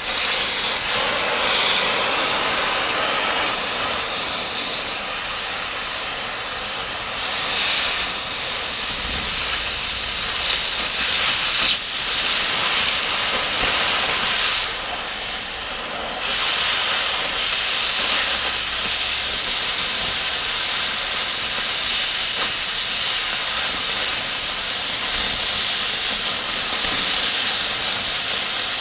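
Cutting torch running with a steady, loud hiss as it cuts and washes weld off the steel of a tractor lift arm; the hiss dips and swells a few times.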